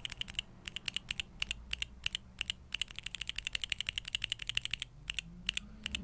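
Outemu Sky tactile mechanical keyboard switch topped with an OEM-profile keycap, pressed over and over by hand: a run of sharp plastic clacks, at times in quick bursts.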